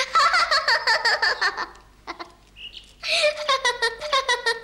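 A young girl laughing in two bursts of quick, pulsed giggles: the first at the start, lasting nearly two seconds, the second beginning about three seconds in and ending abruptly.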